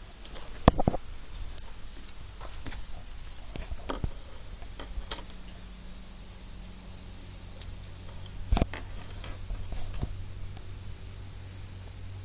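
Handling noise close to the microphone: scattered clicks and knocks, loudest about a second in and again near the end, over a low steady hum.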